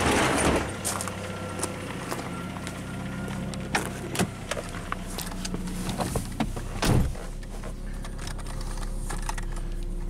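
1996 Mercury Mystique idling smoothly, a purr, while a car door is handled: a few clicks and knocks, then a heavy thump as the door shuts about seven seconds in, after which the idle sounds fuller and lower.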